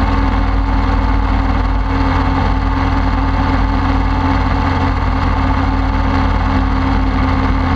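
Open-frame ultralight aircraft's engine and propeller running steadily in flight, with a rush of wind over the open airframe and the camera.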